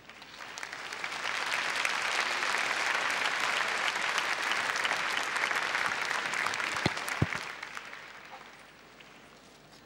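Audience applause, swelling in over the first second or so, holding, then dying away before the end, with two sharper claps about seven seconds in.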